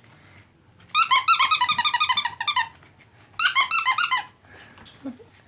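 Squeaky pet toy being squeezed in two quick runs of rapid squeaks, about eight a second, the first about a second and a half long and the second about a second.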